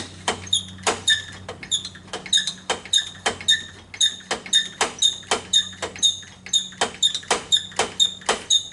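Rapid, repeated squeaky strokes, about three a second, from working a fuel-injector test rig to build test-fluid pressure in a cold start injector while checking it for leaks.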